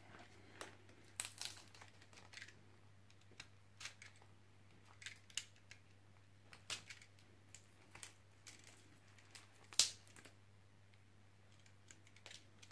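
Snap-off utility knife slitting packing tape on a cardboard mailer: faint scattered clicks, scrapes and crinkles as the blade and fingers work the tape, with one sharper click about three-quarters of the way through.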